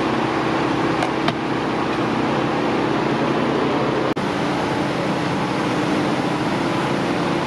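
Steady roar of city traffic noise, with two faint clicks about a second in and a brief dropout just after four seconds.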